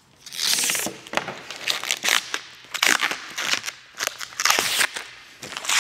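Protective plastic film being peeled off a transparent sheet panel, crackling and crinkling in a series of separate pulls.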